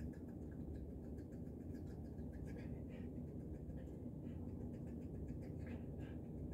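A cat playing with a person's hand on a floor mat: faint, scattered scratching and pattering of paws and claws over a steady low hum.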